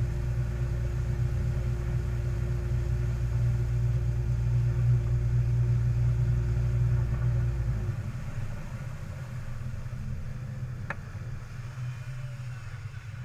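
Malibu Flightcraft towboat's inboard engine running steadily at skiing speed, with water rushing and spraying. About eight seconds in, the engine note drops and gets quieter as the engine eases off.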